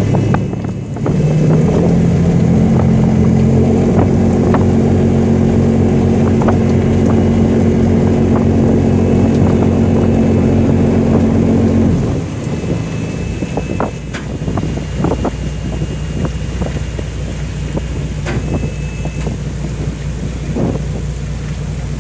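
The landing craft's diesel main engine heard from the wheelhouse. It climbs in steps to a higher, louder run about two seconds in and holds there, then is throttled back to a lower, quieter idle about twelve seconds in. The engine is being worked to hold the anchored ship against strong wind and current, with scattered knocks and rattles in the wheelhouse.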